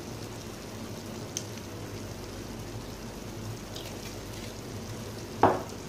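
Steady sizzling crackle of pulao rice cooking in a pan on the flame, its water cooked off. A single short knock comes about five and a half seconds in.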